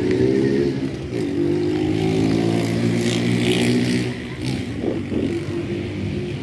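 A motor vehicle engine running nearby, its pitch dipping briefly near the start and then holding fairly steady.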